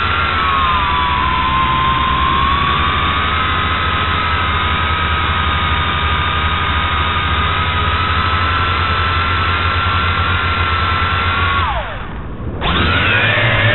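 Tarantula X6 quadcopter's motors and propellers whining steadily, heard from the onboard camera, the pitch drifting slightly. Near the end the whine drops steeply in pitch and dies away for about a second, then comes back at several shifting pitches.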